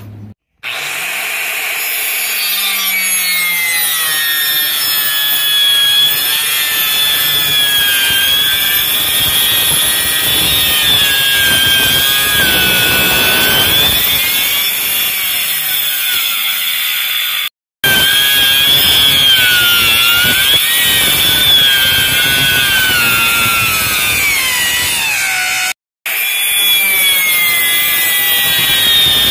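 Compact Makita handheld circular saw cutting through a wooden plank: a loud, steady motor whine whose pitch sags and recovers as the blade works through the wood. The sound breaks off for an instant twice, in the middle and near the end.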